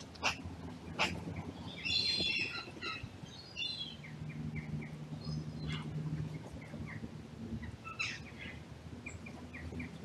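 Wild birds calling: a louder call about two seconds in and another around three and a half seconds, with small high chirps repeating throughout. A few sharp clicks sound in the first second.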